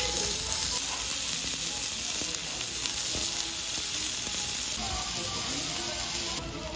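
Pork sizzling on a hot griddle plate over a gas burner: a steady frying hiss, with faint music underneath. The sizzle drops in level near the end.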